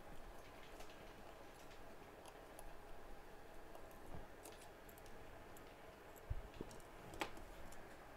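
Faint, scattered small clicks of metal tools and flex-cable connectors being pried off an opened iPhone X, with a low thump and then a sharper click near the end.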